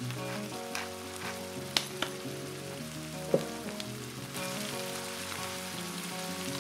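Corned beef, potatoes and onion sizzling in oil in a frying pan: a steady hiss with sharp pops, the loudest about two seconds in and again after three seconds. Soft background music plays throughout.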